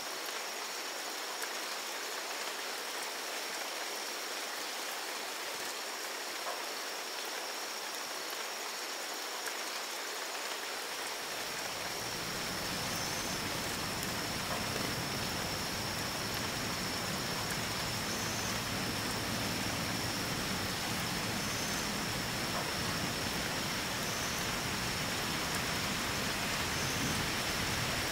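Steady rain falling on forest foliage, an even hiss with scattered drops, growing fuller and deeper about eleven seconds in. A thin, steady high-pitched insect drone runs underneath.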